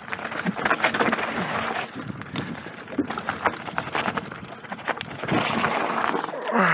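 Mountain bike rolling fast down a rocky dirt singletrack: tyres crunching over loose stones and the bike clattering and rattling over the bumps. A short voice sound with falling pitch near the end.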